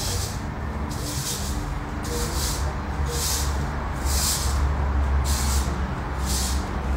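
Repeated short pulses of high-pitched hissing, roughly one or two a second, over a steady low rumble.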